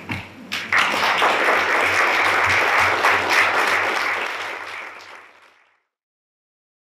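Audience applauding: a few scattered claps build into full applause about a second in, which fades out about five seconds in.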